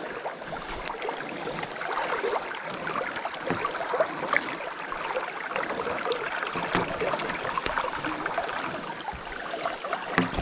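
River water running and rippling in a steady wash, with small splashes.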